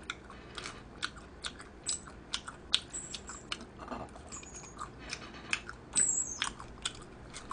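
A person chewing spicy stir-fried pork intestines (gopchang), with irregular mouth clicks a few times each second.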